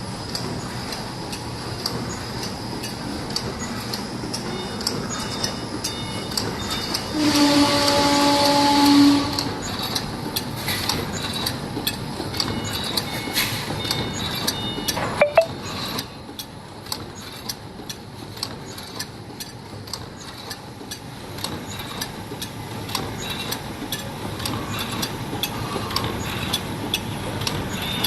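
Automatic dim sum forming machine running with a steady mechanical noise and frequent irregular clicks. A louder pitched tone sounds for about two seconds some seven seconds in.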